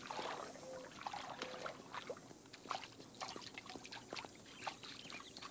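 Light, irregular splashing and dripping of water as cougar kittens wade and scamper through a shallow pool.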